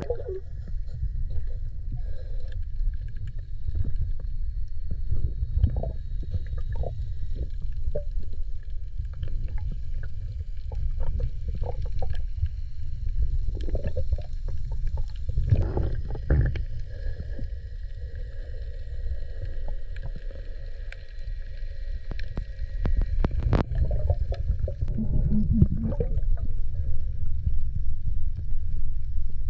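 Muffled underwater sound picked up by a diving camera: a steady low rumble of water moving around the camera as the diver swims and fans sand on the seabed, with scattered clicks and crackles. A faint high steady tone runs for several seconds past the middle.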